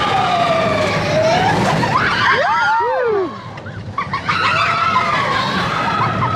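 Several riders screaming and whooping, their voices rising and falling and overlapping, over the steady rumble of a mine-train roller coaster running on its track. The whole thing dips briefly a little past the middle, then the screaming comes back.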